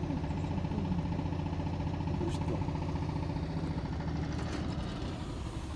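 Single-cylinder diesel engine of a two-wheel walking tractor (power tiller) running steadily with a fast, even putter as it pulls a loaded trailer, growing a little fainter near the end.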